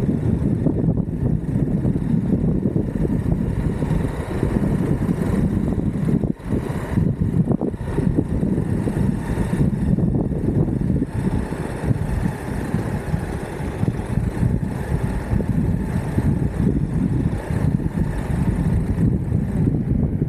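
Continuous low rumble of wind buffeting the microphone and wheels rolling on the road while riding an Exway Atlas Pro 4WD electric skateboard, with a brief dip about six seconds in.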